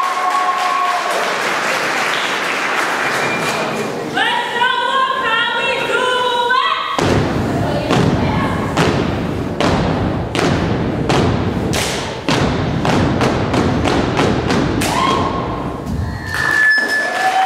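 A step team chanting in unison, then from about seven seconds in stomping and clapping a fast, driving rhythm of sharp strikes, about three to four a second, with a shouted call near the end.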